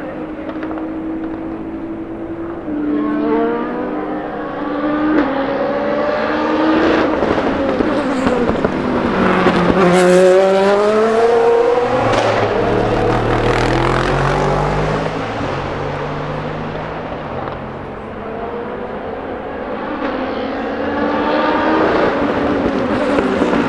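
Racing car engines passing at speed on a circuit. The engine notes climb in pitch, one car goes by close with a sharp drop in pitch about ten seconds in, a deeper engine note follows, and another car accelerates near the end.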